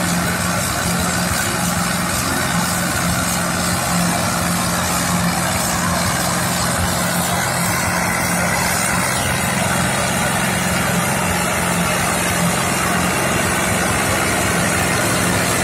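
Vintage farm tractor engine running steadily under load as it drags a heavy log across a field, its pitch holding even throughout.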